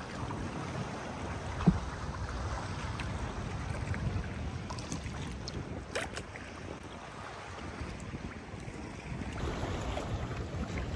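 Wind buffeting the microphone over water lapping around a kayak, with two short sharp knocks, one about two seconds in (the loudest moment) and one around six seconds.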